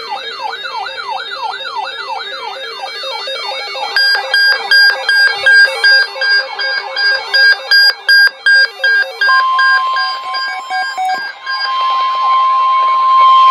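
Layered electronic alarm tones: wailing, siren-like sweeps over rapid alternating beeps, then fast on-off beeping. About nine seconds in, a steady single high tone takes over, the NOAA Weather Radio warning alarm tone that comes before a broadcast warning.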